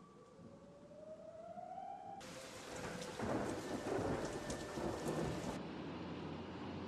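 A tone rising slowly in pitch, then a dense rush of rain-like noise with rumbling that starts suddenly about two seconds in and cuts off abruptly some three seconds later, leaving a low steady hum.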